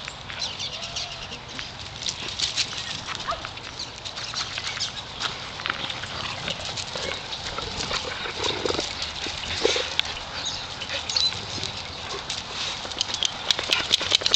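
Several dogs playing and scuffling, with scattered short yips among many quick clicks and taps.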